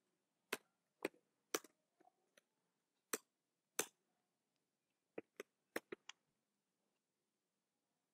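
Faint, separate clicks of a computer keyboard and mouse: a few single clicks spaced half a second to a second apart, then a quick run of five clicks about two-thirds of the way through.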